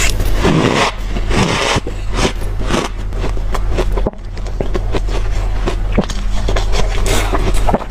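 Close-up chewing of hard, deep-freezer crushed ice: dense, squeaky, crunchy crackling, with a brief lull about four seconds in. A steady low hum runs underneath.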